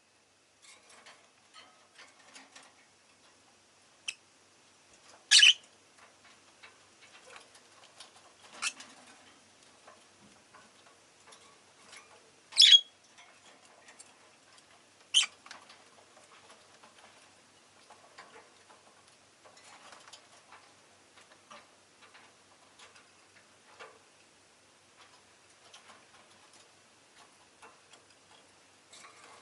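Rosy-faced lovebird giving short, sharp single chirps: four loud ones a few seconds apart, over a run of faint scattered ticks and clicks.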